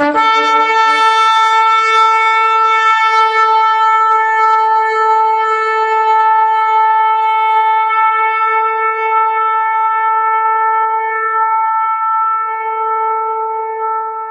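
Shofar blown in one long, loud blast: a brief lower note at the start jumps up to a single held tone with a bright, buzzy edge, wavering slightly, that lasts about fourteen seconds before fading out at the very end.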